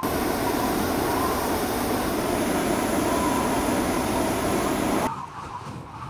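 Hot air balloon's propane burner firing: a loud, steady blast that starts abruptly and cuts off suddenly after about five seconds.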